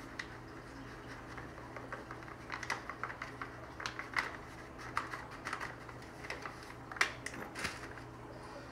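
Paper flour bag crinkling and tapping as flour is shaken out of it into a glass measuring cup: a run of small, irregular clicks and rustles, the sharpest about seven seconds in.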